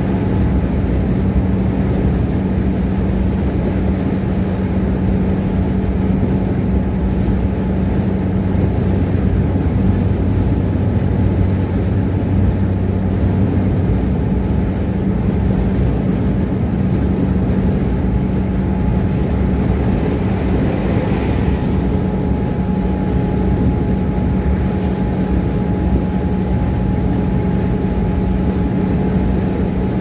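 Steady drone of a car cruising on a highway, heard from inside the cabin: tyre and road noise with a low engine hum. A brief rush of noise comes about twenty-one seconds in.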